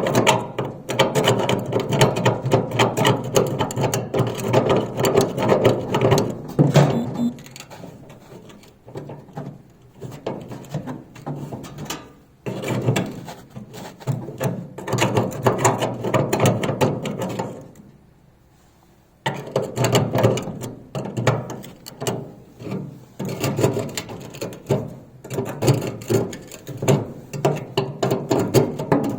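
Metal scraper scraping and prying at rusted, seized burner parts inside a gas grill: bouts of rapid scraping and clicking, easing off about a third of the way in and stopping briefly a little past halfway.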